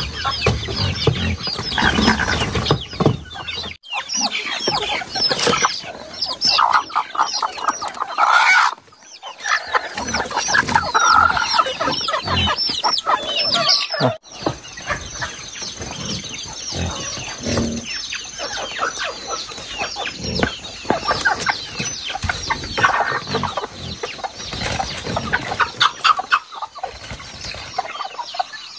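A crowd of chickens, mostly roosters, clucking and calling without a break while packed in woven baskets and being handled.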